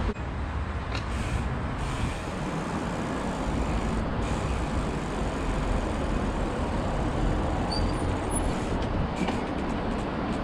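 Steady noise of passing road traffic on an adjacent city street.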